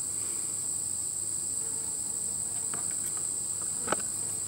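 Steady high-pitched chorus of crickets, unbroken throughout. A few faint ticks and one sharper tap come about three to four seconds in.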